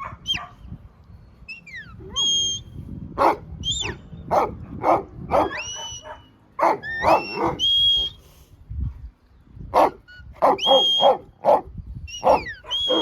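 Whistled herding commands to working sheepdogs, short held notes and quick rising or falling glides, alternating with the sheepdogs barking many times.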